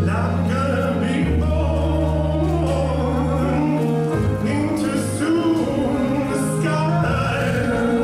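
Music with a sung vocal line over sustained low bass notes that shift every few seconds.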